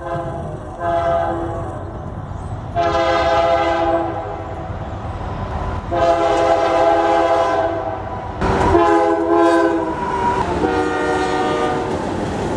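Multi-chime locomotive air horn sounding a series of chord blasts, several about two seconds long with short gaps between, over the low rumble of the moving train.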